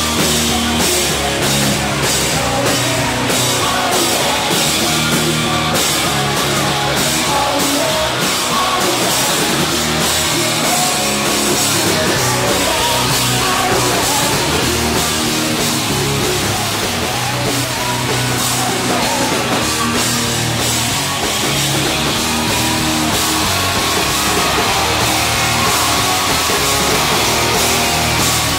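Live rock band playing loud, fast music: electric guitar, bass guitar and drum kit, with steady drum hits.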